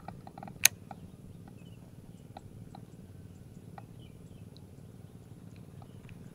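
Handling noise from a baitcasting rod and reel: a quick run of light ticks, then one sharp click about half a second in, with scattered single ticks after it over a low steady rumble.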